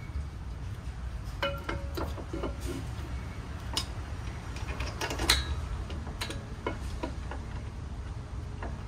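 Irregular metallic clicks and clinks from an ENDLESS racing brake caliper being fitted back over the disc and its mounting bolts being turned in with a hand tool. The sharpest clink comes about five seconds in, over a steady low rumble.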